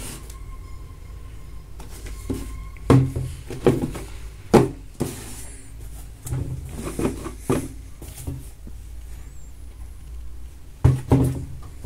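Leather platform sneakers being handled and set on a cardboard shoebox: scattered knocks and rustles over a steady low hum.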